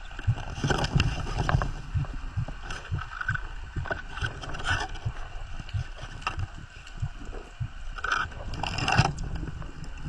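Water splashing and sloshing with irregular knocks and a low rumble.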